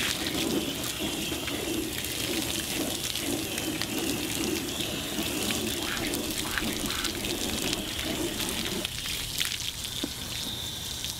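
Water spraying from a hose-fed dog-washing wand onto a cyanotype print in a plastic tub, splashing and running off onto the ground as unused chemistry is rinsed off the back of the print. About nine seconds in, the spray is turned away from the tub and the lower splashing drops out, leaving a lighter hiss of water.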